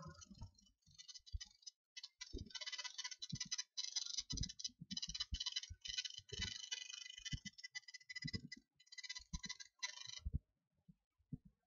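Faint irregular clicking and soft tapping over a hiss that comes and goes, stopping about ten seconds in.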